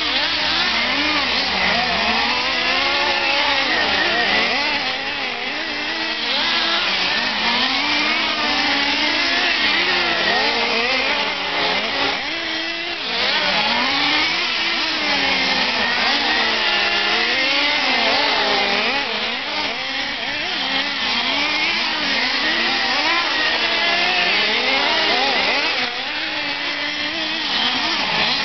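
Several nitro RC trucks' small two-stroke glow-fuel engines running together, each revving up and dropping back over and over as the trucks lap the track, their whines overlapping in a constant rising-and-falling buzz.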